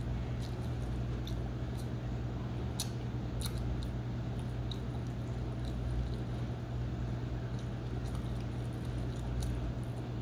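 A person chewing pizza, with scattered wet mouth clicks and smacks over a steady low hum.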